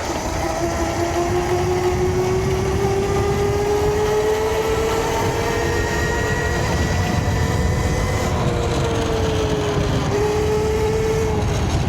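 Electric dirt bike's motor whining under power as it climbs. Its pitch rises slowly with speed, dips, then steps back up near the end, over steady wind and tyre rumble.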